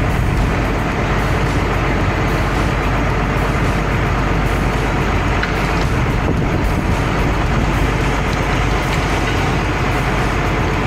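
Heavy forestry machine's engine running steadily, with a low, even drone under a dense mechanical noise.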